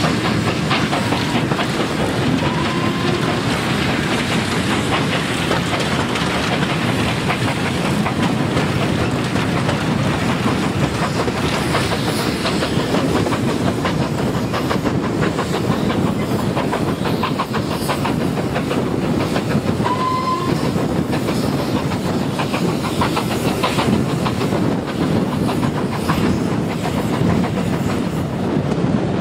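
Steam-hauled passenger train running along the line, heard from a carriage window: the coaches' wheels clicking over rail joints under a steady rumble.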